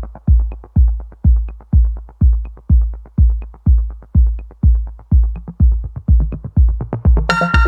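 Electronic dance music: a heavy kick drum about twice a second, with a bright synth line coming in near the end.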